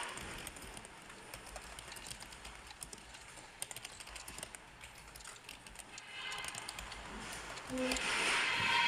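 Light plastic clicks and rattles of a BMW F10 centre dashboard air vent assembly being handled and worked on with a screwdriver. A louder stretch of noise comes near the end.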